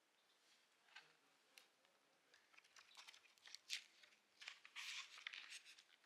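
Faint rustling of paper pages as a thick illustrated book is leafed through by hand: scattered soft ticks and rustles, with a longer rustle about five seconds in.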